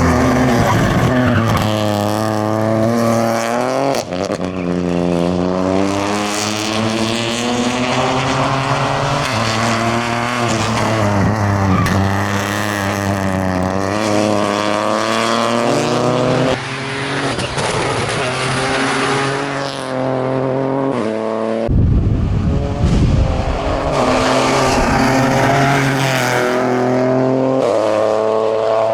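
Rally car engine at full throttle through a stage, its revs climbing and dropping again and again with gear changes and lifts. The sound cuts abruptly between passes, and about two-thirds of the way in there is a burst of rough, noisy rumble.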